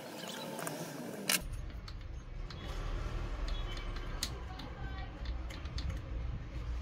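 Light metallic clicks and jingles as a thin HSS slitting saw blade is worked by hand onto the freshly turned steel arbor in the mini lathe's chuck. Before that, a steady machine noise runs for about the first second and a half and ends with a sharp click.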